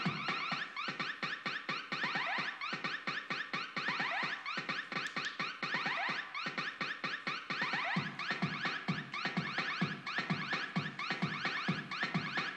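Electronic dance music: a fast, repeating rising synth chirp, alarm-like, over a steady pulsing bass beat.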